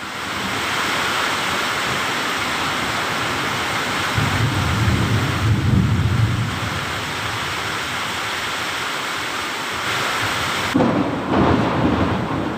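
Heavy rain falling steadily, with thunder rumbling low about four seconds in and again near the end.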